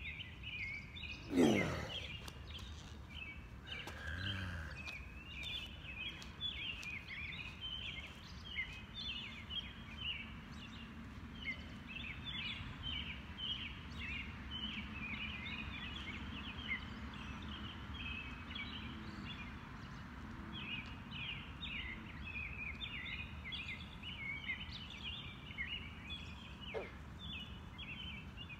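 Dense night-time chorus of chirping insects, many short high chirps overlapping without pause. About a second and a half in, a brief louder sound sweeps down in pitch.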